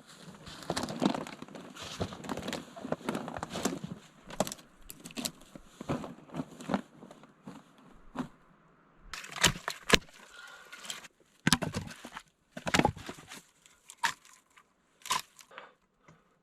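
Firewood pieces and broken branches being gathered and handled: a busy run of knocks, rustling and crackling, giving way in the second half to a few sharp, loud cracks of wood.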